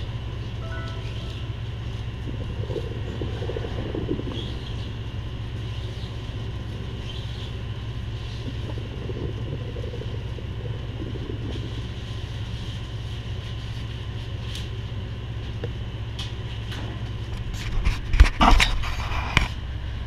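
Steady low mechanical hum of a work area, with a brief clatter of knocks and handling noises near the end.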